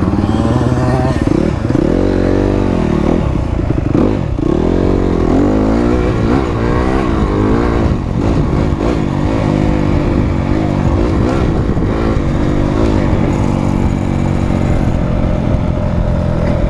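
Dirt bike engine revved again and again, its pitch rising and falling in a series of blips, then settling to a steady idle near the end.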